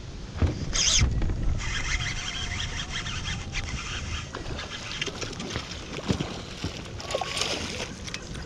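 A hooked fish thrashing and splashing at the water's surface beside a boat while being fought on a bent rod, with the splashing heaviest near the end.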